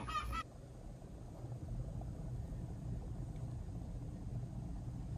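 Outdoor sound cuts off abruptly about half a second in, giving way to a low, steady rumble with a faint hum: the background noise of a quiet room.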